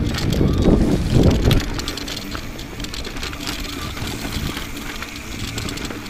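Mountain bike descending rocky singletrack at race speed: wind buffeting the camera's microphone, strongest in the first second and a half, with tyres crunching over loose rock and the bike's chain and parts rattling in quick clicks.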